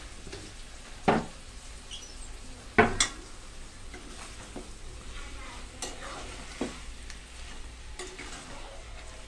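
A steel spoon stirring chicken masala in a pressure cooker, knocking against the pot several times, the loudest about three seconds in, over a steady sizzle of frying.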